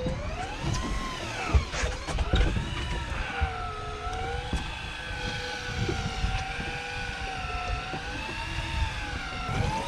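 A motor whining steadily, its pitch rising and falling smoothly every second or two, with low thuds and a couple of short knocks under it in the first few seconds.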